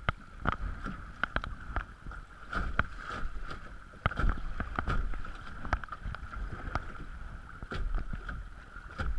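Fast creek water rushing and splashing around a paddled kayak, with irregular knocks and splashes from the paddle and hull, and some wind rumble on the microphone.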